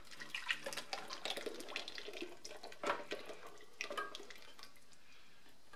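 Thick liquid honey poured from a metal saucepan onto diced pumpkin, making faint, irregular splatting and dripping sounds that thin out near the end as the stream narrows.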